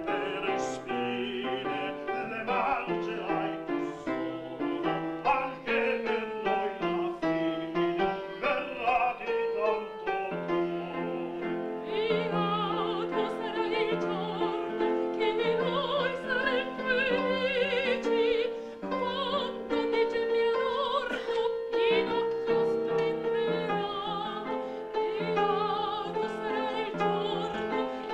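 Opera-style music with piano accompaniment; about twelve seconds in, a singing voice with strong vibrato enters over the accompaniment.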